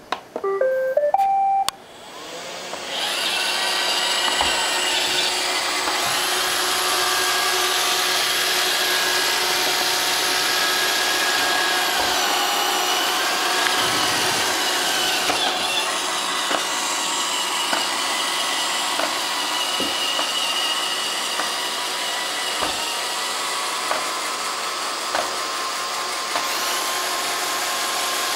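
Roomba robot vacuum playing its short rising start-up chime, then its brush and suction motors spin up about two seconds in and run steadily with a whir. A few faint knocks come through while it runs.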